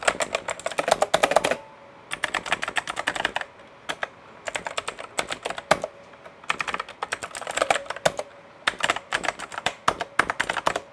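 Typing on a Sharkoon Skiller SGK1 mechanical keyboard with clicky blue Kailh switches: rapid runs of sharp keystroke clicks in several bursts, with short pauses between them.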